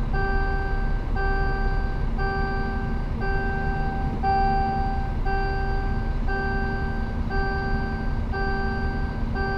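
Electronic warning beeper sounding over and over, about one long beep a second with short gaps, over the steady low running noise of the Scania P360 truck's diesel engine and road noise.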